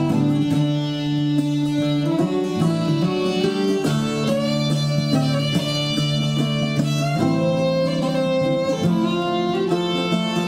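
Irish folk music played on fiddle and guitar, with held bowed notes over plucked strings.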